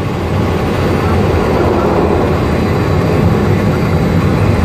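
Fokker 50 turboprop engines and propellers, with rumble from the runway, heard from inside the cockpit during the landing rollout: a steady, loud noise weighted to the low end.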